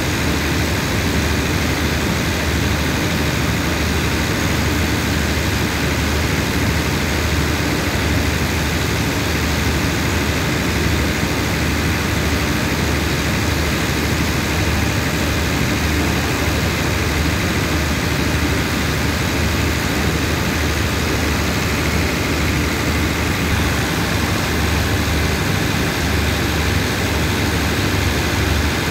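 Steady low drone of a stopped diesel passenger train's engines running at idle, with a strong constant hum and no change in pitch or level.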